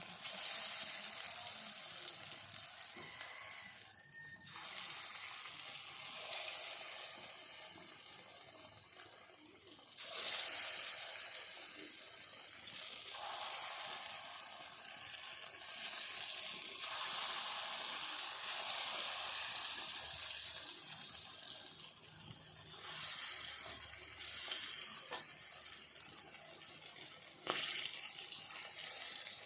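Pakora batter of chana dal and vegetables sizzling as it deep-fries in hot mustard oil in a kadhai: a steady frying hiss that rises and falls in level several times.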